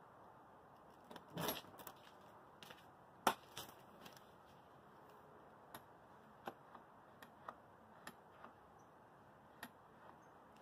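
Light clicks and taps from hands working a black gate latch and its pull string on a vinyl fence gate. There is a short scrape near the start, one sharper click about three seconds in, then scattered small clicks.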